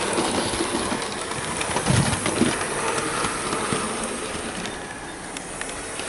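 Hornby OO gauge model of a Princess Coronation Class steam locomotive running around the layout, with faint clicks of its wheels on the track. It runs smoothly, with no grinding noises or stuttering.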